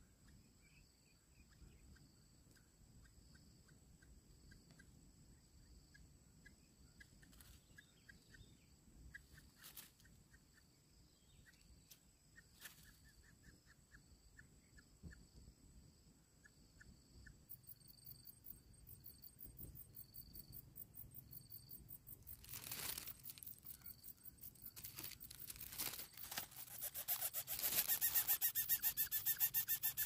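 Lesser coucal nestling giving a fast, evenly pulsed rasping call that swells to its loudest over the last few seconds as it gapes. Before that there are only faint scattered ticks, with a couple of brief rustles in the nest grass about two thirds of the way in.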